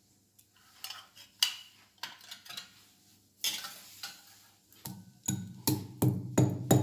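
Tulsi leaves, ginger, black pepper and dry coriander being pounded with a pestle in an okhli (mortar). A few light clinks and a scrape come first, then from about five seconds in come steady pounding strikes, roughly three a second.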